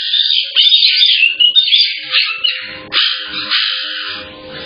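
A room of caique parrots calling: many loud, overlapping shrill screeches and whistles, some gliding up and down in pitch. They are heard through a home security camera's microphone.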